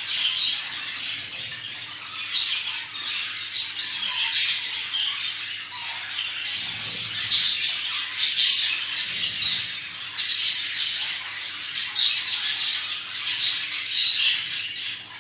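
A group of budgerigars chattering, warbling and squawking without pause, many short quick calls overlapping. This is the lively chatter of budgies in breeding condition, the kind played to stir other budgies to breed. A couple of soft low thumps come about seven and nine seconds in.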